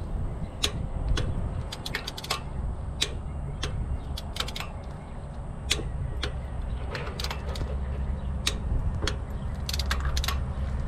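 Irregular sharp metallic clicks and clinks of a torque wrench and socket being worked on the bolts of a sugarcane harvester's external chopper timer, over a low steady hum.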